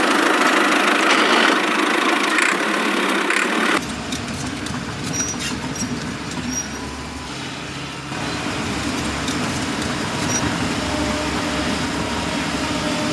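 A steady engine-like running sound. It changes character abruptly about four seconds in, when a low rumble joins, and shifts again about eight seconds in.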